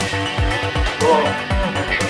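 Electronic background music with a steady, driving kick-drum beat.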